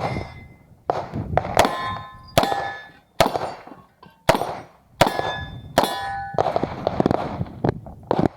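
A string of 9mm Uzi Pro pistol shots at steel targets, roughly one a second, with the steel plates clanging and ringing on the hits.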